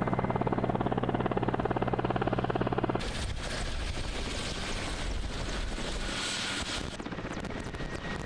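Mi-8-type military transport helicopter flying overhead: a rapid, even chop of the rotor blades over a steady turbine hum. About three seconds in, the sound changes abruptly to a rougher, noisier rush of rotor wash and engines, and changes again near the end.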